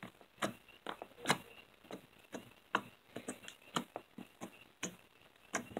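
A fingertip repeatedly poking into a blob of blue store-bought slime, giving faint short sticky clicks, about two or three a second at uneven intervals.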